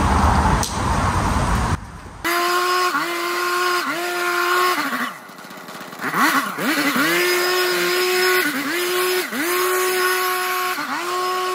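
Petrol leaf blower engine revved in repeated throttle bursts: a high-pitched whine that rises, holds for a moment and drops back, again and again, with a short lull about halfway. For the first two seconds there is only a broad rushing noise.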